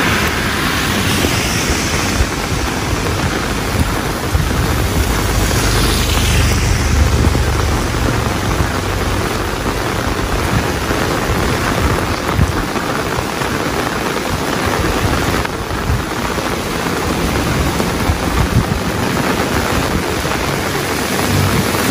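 Rain falling steadily, a dense hiss on all sides. A low rumble swells and fades between about two and eight seconds in.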